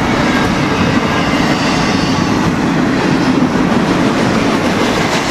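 Double-stack intermodal freight train's loaded well cars rolling past close by: a steady, loud noise of steel wheels on rail.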